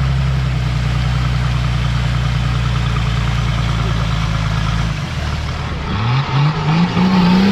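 A 4x4's engine idling steadily. About five seconds in the note changes and the engine revs up in several short rising steps.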